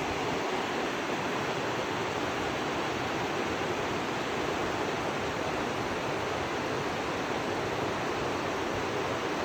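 Fast mountain river rushing steadily over rapids.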